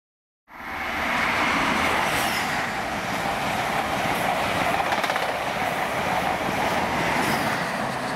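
A train running past on the main line: a steady rush of wheels on rail and running noise, cutting in about half a second in and holding an even level.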